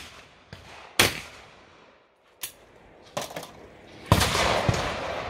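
Shotgun shots fired at clay targets: a sharp report about a second in, fainter ones around two and a half and three seconds, and the loudest near the end, followed by a long noisy tail.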